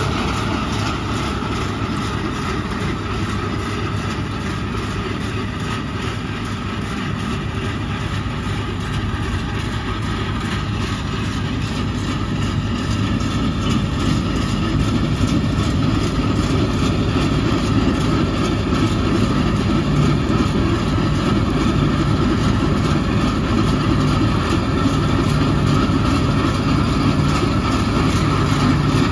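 Bizon Z056 Super combine harvester running under load while harvesting wheat: its SW-400 six-cylinder diesel engine drones steadily along with the threshing machinery. It grows louder from about halfway through as the combine comes closer.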